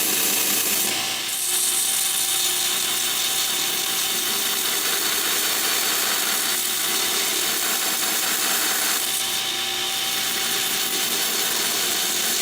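A power tool running steadily while grinding and shaping the shoulders of a steel chisel blade: a constant hiss of abrasion over a steady motor tone.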